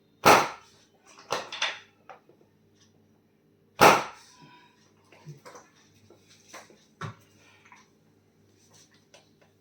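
Sharp smacks and knocks. Two loud ones come about three and a half seconds apart, with several softer knocks between and after.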